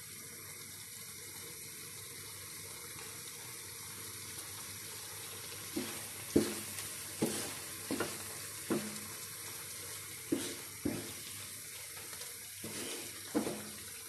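A creamy chicken masala sizzling steadily in a nonstick frying pan. From about six seconds in, a wooden spatula stirs it, knocking against the pan in a series of sharp knocks.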